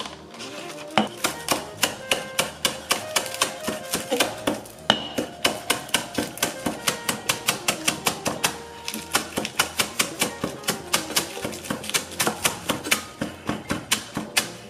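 Rapid knife chopping on a cutting board, an even run of sharp knocks at about four to five strokes a second, over background music.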